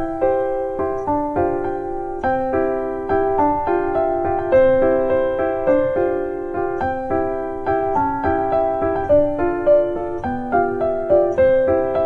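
Background music: a gentle keyboard or electric piano melody with chords, playing steadily with a note about every half second.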